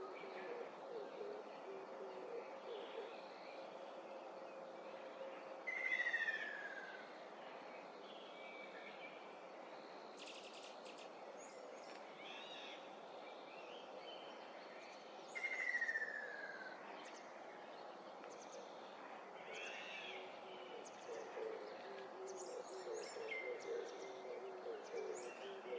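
Ruddy kingfisher giving its falling call twice, about ten seconds apart, each note sliding down in pitch for about a second. Other small birds chirp now and then, and a low, pulsing call comes in near the start and again in the last few seconds.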